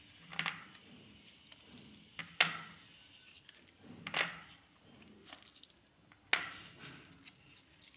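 Hard sesame-jaggery pieces being pressed out of a plastic mould tray and set down on a plate: four sharp clicks and clacks about two seconds apart, the second and fourth loudest, with small ticks and rustles between.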